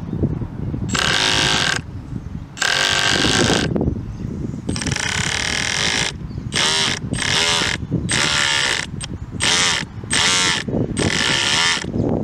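Miniature GAU-8 cannon sound unit, a small electric motor spinning a length of tubing on its shaft, fired in about nine short buzzing bursts of half a second to a second each, with puffs of powder blown from the barrel by an air pump.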